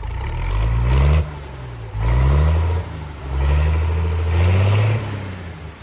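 A vehicle engine accelerating hard. Its pitch climbs three times and drops suddenly between each climb, as when shifting up through the gears.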